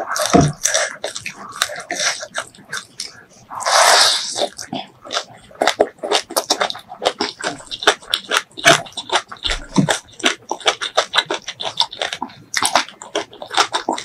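Close-miked chewing and lip smacking of a mouthful of white rice and spicy shredded mango salad: a fast, continuous run of wet mouth clicks, with a brief louder rush of noise about four seconds in.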